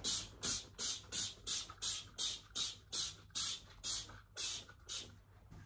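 Hand trigger spray bottle spritzing glass cleaner onto a window, a quick hiss about three times a second, stopping about five seconds in.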